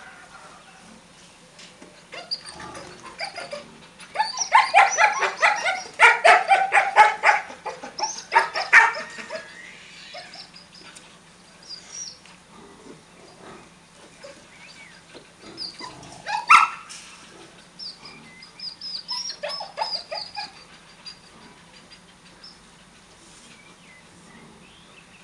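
Dogs barking in quick runs, several barks a second, loudest from about four to nine seconds in. There is one loud single bark about sixteen seconds in and a shorter run of barks near twenty seconds.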